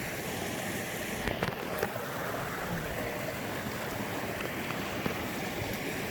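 Small mountain stream running over rocks: a steady rush of water, with a few faint clicks about a second and a half in.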